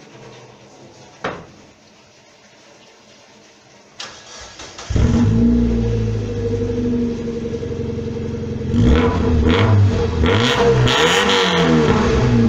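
Mazda MX-5 NB four-cylinder engine with a Magnaflow exhaust being started: a click about a second in, a brief crank about four seconds in, then the engine catches and settles into a steady idle. It is revved several times in quick blips near the end, with the exhaust note rising and falling.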